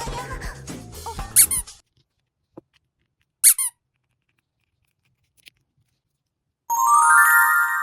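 Edited-in cartoon sound effects. Cheerful background music with squeaky chirps stops about two seconds in. A short high squeak follows about three and a half seconds in, then a bright, sustained electronic chime near the end.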